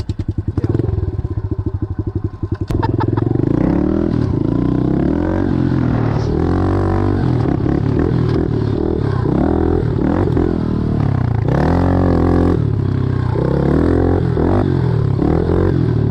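Small pit-bike engine putting along at a low, even beat, then from about three seconds in revving up and down over and over as it is ridden.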